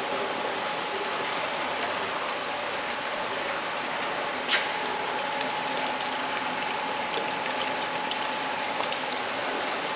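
Steady hiss of water running through trout hatchery troughs, with a faint steady tone under it. A sharp click about four and a half seconds in, then a few light ticks.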